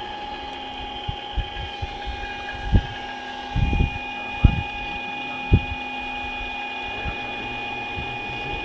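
Steady high whine from the hydraulic pump of a radio-controlled scale Liebherr 944 excavator as it works its boom and bucket. Several dull low thumps are scattered through.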